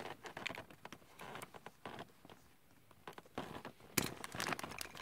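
Faint handling noise: small plastic clicks and rustles from hands posing a plastic action figure. A denser cluster of crackly clicks comes about four seconds in.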